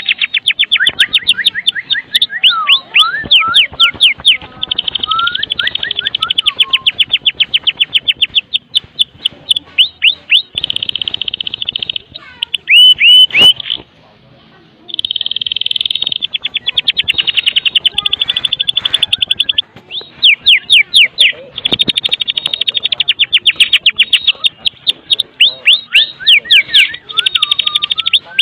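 White-rumped shama (Medan murai batu) singing its rattling 'kretekan' song: long fast runs of sharp repeated notes, several a second, mixed with a few swooping whistles, with a short break about halfway through.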